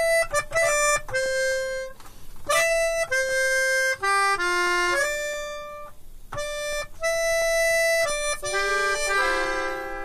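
Melodica playing a slow melody of held, steady notes with short breaks between phrases; near the end several notes sound together.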